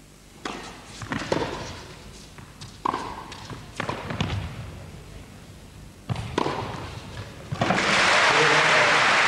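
Tennis rally in an indoor arena: a series of sharp racket strikes on the ball and ball bounces, each with a short echo. About three-quarters of the way through, the crowd bursts into loud, steady applause as the point ends.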